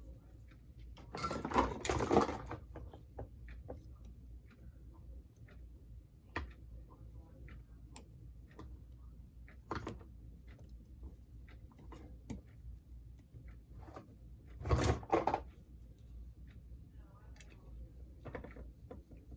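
Handling noise from taking apart a model train locomotive: scattered small clicks and taps of tools and parts, with two louder rattling bursts, one a second or two in and one near three-quarters through.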